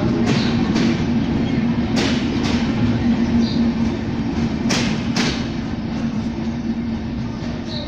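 Bangladesh Railway Intercity passenger coaches rolling past, wheels clacking over rail joints in pairs about half a second apart over a steady rumble. The sound slowly fades as the last coach moves away.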